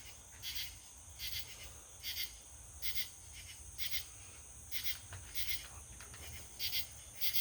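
Night insects chirping: a steady high trill with a shorter chirp repeating a little more than once a second.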